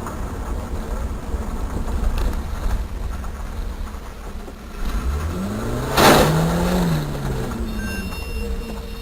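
Dashcam recording of car road noise, a steady low rumble, with an engine revving up and back down about five to seven seconds in. A single sudden loud bang comes about six seconds in.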